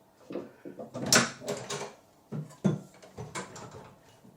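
A run of short knocks and clicks from handling light-fixture hardware, the sharpest about a second in.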